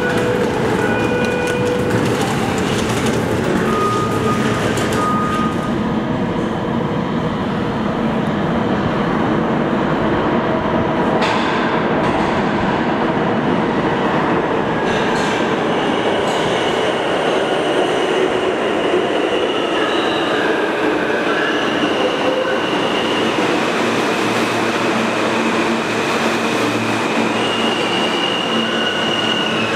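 An R160A-1 subway train approaches through the tunnel and pulls into the station, with a steady, loud rumble of wheels on rail. From about halfway through, high-pitched wheel squeal rings out in several held tones as the cars run along the platform.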